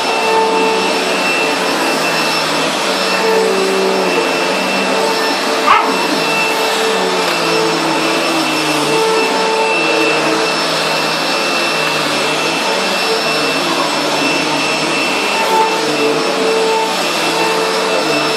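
Vacuum cleaner running steadily, a continuous whining drone whose lower tones waver up and down; a single sharp sound stands out about six seconds in.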